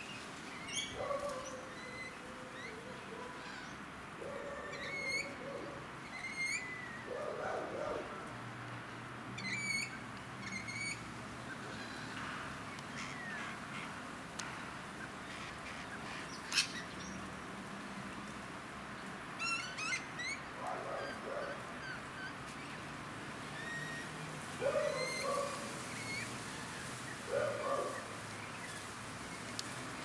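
Several birds calling: short high chirps that glide sharply in pitch, repeated in quick pairs and runs, with a few lower, coarser calls now and then.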